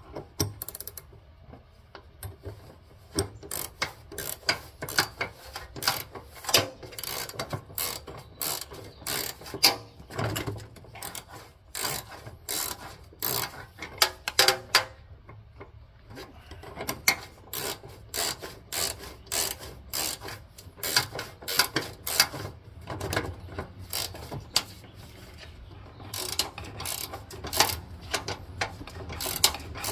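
A 9/16 ratcheting wrench clicking in quick runs as the seat-mounting bolts are tightened, with short pauses between runs.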